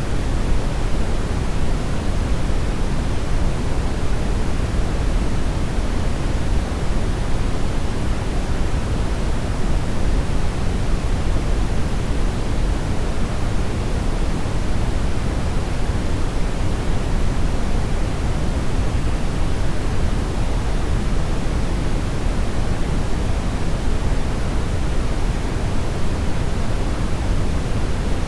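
Steady brown noise: an even, unchanging rumbling hiss, strongest in the low end and fading toward the highs.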